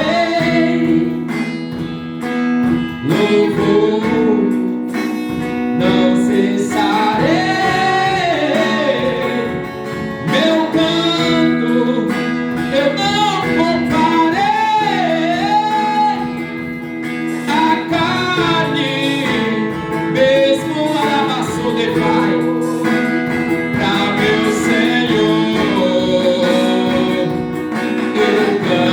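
Gospel worship song: a voice singing over strummed acoustic guitar.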